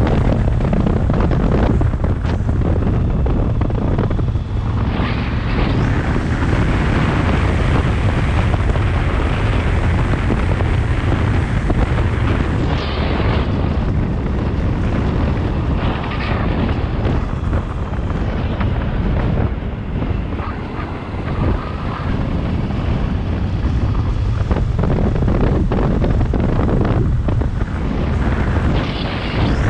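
Wind buffeting the microphone of a camera on a moving motorcycle, a loud steady rumble that covers the bike's engine and tyre noise and eases briefly about twenty seconds in.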